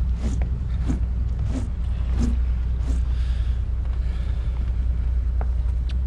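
Marex 310's stern-drive engine running at a low, steady drone as the newly launched boat moves slowly on its first run in the water. Short knocks, about one every two-thirds of a second, sound over it in the first half; they fit footsteps on the teak deck.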